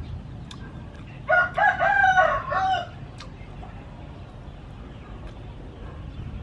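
A rooster crowing once, a call of about a second and a half that starts about a second in and breaks into several segments.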